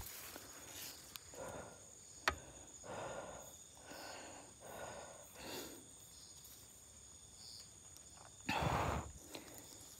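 Grass and leaves rustling as someone pushes through undergrowth on foot, in soft swishes every second or so, with a sharp click about two seconds in and a louder rustle near the end. A steady high chorus of night insects runs underneath.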